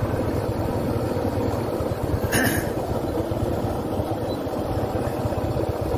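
Vehicle driving along a road at speed: a steady engine and road rumble, with a short burst of noise about two and a half seconds in.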